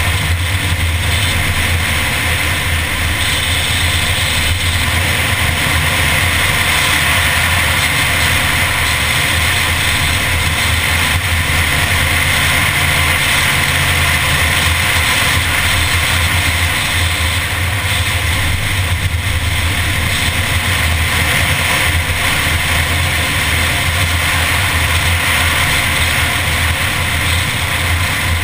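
A Mini car being driven at a steady pace along a winding road, its engine running with a steady drone mixed with wind and road noise over the bonnet-mounted camera.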